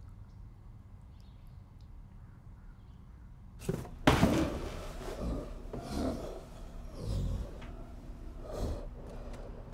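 A low, quiet hum, then about three and a half seconds in a sudden loud outburst of guttural growls and grunts from a man, repeating roughly once a second: zombie growling.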